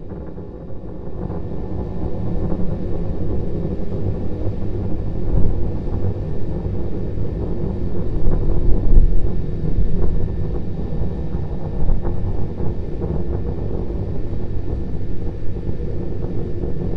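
Distant rumble of Starship SN9's Raptor rocket engines, two of its three firing, during ascent: a steady low rumble with crackle, swelling a little around the middle.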